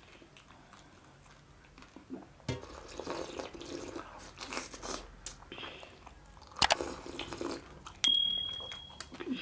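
Close-up eating sounds: crunching and chewing, with scattered clicks. About eight seconds in, a short high chime rings for about a second, the bell of an on-screen subscribe-button animation.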